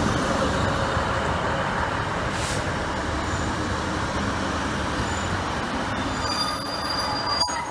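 Northern passenger train rolling into the platform and slowing, with a steady rumble from its wheels and running gear. Near the end its squeaky brakes set up a thin, high squeal as it draws to a stop.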